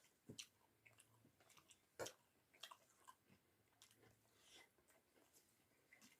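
Faint, close-miked chewing and wet mouth smacks of someone eating rice with bamboo-shoot and potato curry, with scattered sharp clicks, the loudest at about two seconds.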